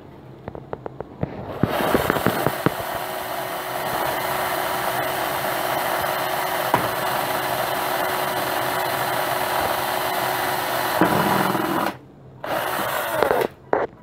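Cordless drill boring a hole down through the wooden roof of a birdhouse. The motor starts a couple of seconds in, runs steadily for about ten seconds, stops, and then gives one short second burst near the end.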